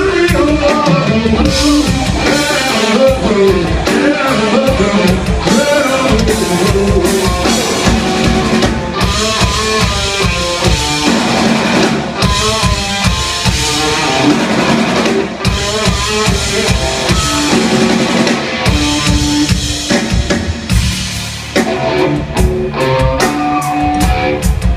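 Live rock band playing an instrumental passage: electric guitar lines that bend in pitch over a steady drum kit beat.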